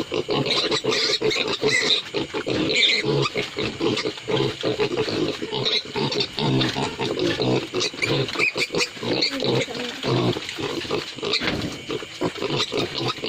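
Several pigs grunting and squealing together, continuous and overlapping.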